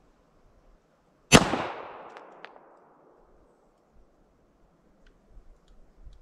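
A single pistol shot from a SIG Sauer P226 Mk25 9mm, about a second in, its report ringing out and fading over a second or so, followed by two faint ticks.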